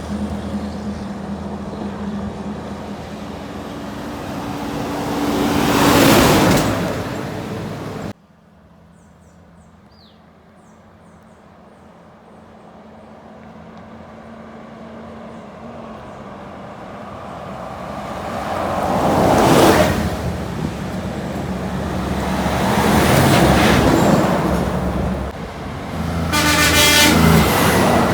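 Road traffic around a truck: an engine runs steadily while vehicles pass in rushes that swell and fade, and a horn sounds for a second or two near the end. The sound drops abruptly about eight seconds in, then builds back up.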